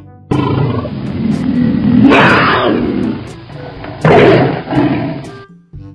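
Tiger roaring twice. The first roar builds to its loudest about two seconds in, and the second starts sharply about four seconds in. Faint background music plays beneath.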